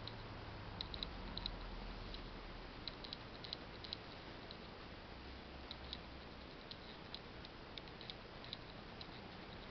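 Quiet room tone: a faint steady hiss with scattered light ticks at no regular pace.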